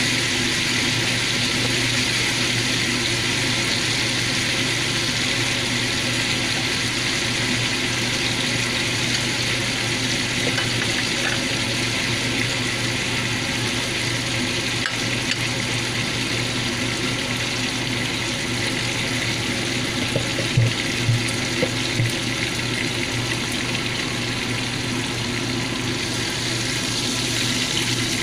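Beef steaks sizzling steadily in butter and oil in a frying pan, with a few short knocks about two-thirds of the way through.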